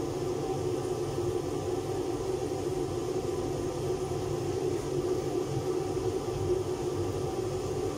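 Kitchen range hood extractor fan running with a steady hum over a low rumble.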